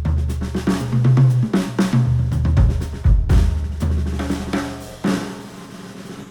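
Instrumental pop music with a drum kit (kick, snare, hi-hat, cymbals) and a heavy bass line, played through headphones and picked up by microphones at the earcups. The drums and bass drop away about five seconds in, leaving a quieter break.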